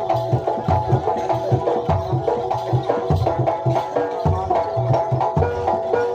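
Jaranan Dor ensemble playing: a jidor bass drum and other drums beating a steady driving rhythm, about two low beats a second, under a melody of short stepping notes.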